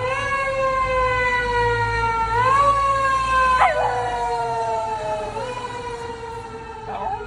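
A long, unbroken siren-like wail that slowly falls in pitch, with small jumps up and down, and a short sharp rise and fall about three and a half seconds in.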